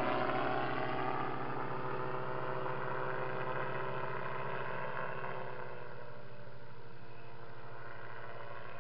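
Engine and pusher propeller of a weight-shift microlight trike droning as it flies past and away, fading steadily, with the pitch sagging slightly about halfway through.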